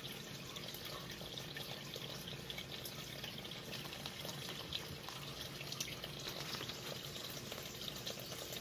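Steady background hiss with many faint scattered clicks and ticks.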